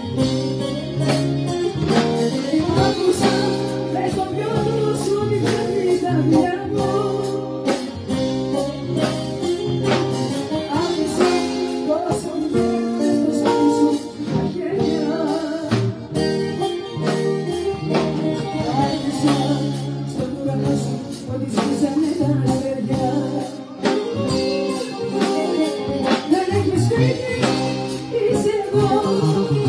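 Live amplified band music with a woman singing into a microphone over plucked string instruments and a steady percussion beat.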